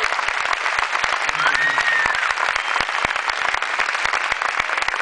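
Audience applauding, a dense patter of many hands clapping, with one high call from the crowd rising then falling about a second and a half in.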